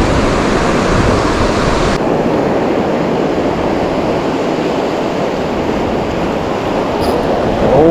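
Steady wash of ocean surf with wind buffeting the microphone. Near the end comes a brief tone that slides up and then down.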